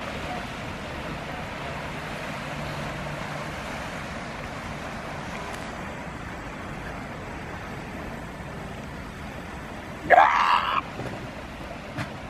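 Steady wash of surf and wind on the shore. About ten seconds in, a northern elephant seal gives one loud call lasting about a second, rising in pitch at the start.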